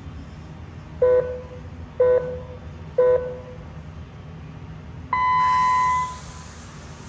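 Electronic race start signal: three short beeps a second apart, then one longer, higher beep that marks the start. A steady hiss comes up with the long beep.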